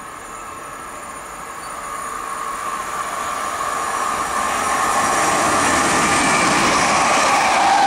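Greater Anglia electric multiple-unit train approaching along the main line, the sound of its wheels on the rails and its running gear growing steadily louder from about two seconds in as it nears.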